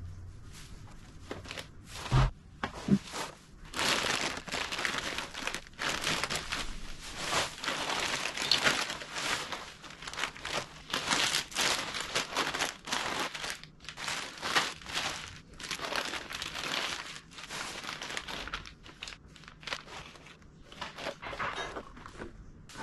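Plastic snack bags and food packaging crinkling and rustling as they are picked up and sorted, on and off, with two short thuds about two and three seconds in as items are set down.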